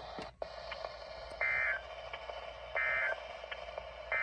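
Emergency Alert System end-of-message data bursts on NOAA Weather Radio: two short, harsh digital chirps about 1.4 seconds apart, with a third starting at the very end, over steady radio hiss. They mark the end of the broadcast alert.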